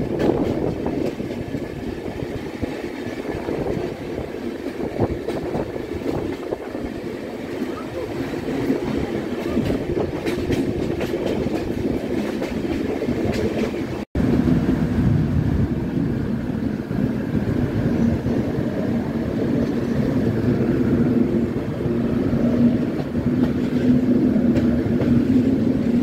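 Passenger train running on the track, heard from an open coach door: a steady rumble of wheels on rails with a few faint clicks. The sound cuts out for an instant about halfway through.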